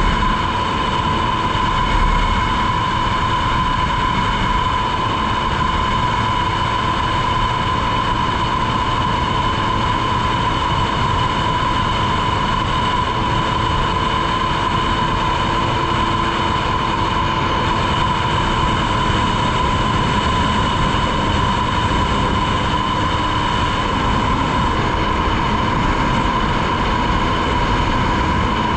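Polaris Virage personal watercraft running at steady speed on its newly replaced jet pump, a constant high whine over a rush of wind and water.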